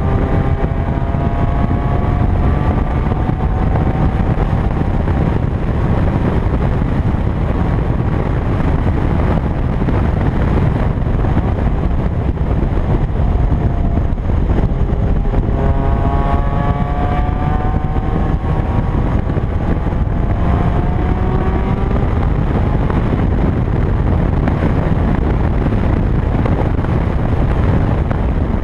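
Loud wind rushing over the microphone as the 2000 Toyota MR2 Spyder's stock 1ZZ 1.8-litre four-cylinder drives at track speed. The engine is heard underneath, its pitch rising under acceleration near the start and in two climbs about halfway through, with a break between them like a gear change.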